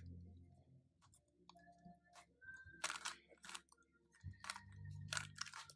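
Yuxin Little Magic Square-1 M magnetic puzzle being turned: faint, irregular plastic clicks as its layers and slice are turned.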